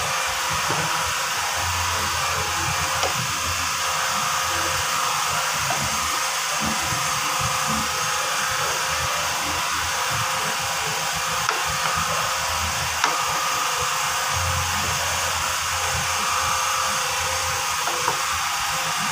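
Steady hissing noise with a few faint knocks and scrapes of a wooden spatula against a steel pot of fried rice.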